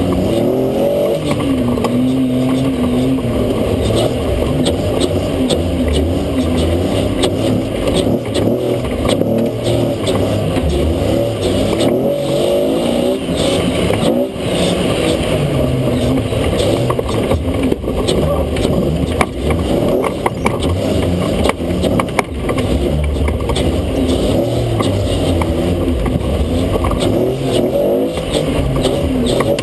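Toyota FJ40 off-road racer's engine heard from inside the open cab, revving up and down repeatedly as the truck drives over a muddy dirt course, with scattered knocks from the chassis.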